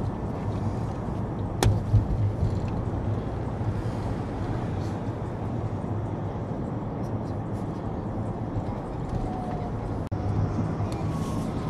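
Steady engine and road rumble of a moving vehicle, heard from inside the cabin, with a low hum under it. There is one sharp click about a second and a half in.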